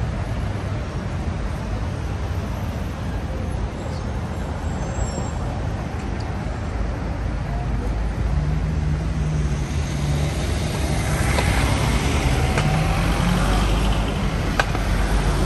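City road traffic: motor vehicles running past on a busy street. A heavy engine's low, steady note comes in about halfway through, and the traffic grows louder as a vehicle passes close in the last few seconds.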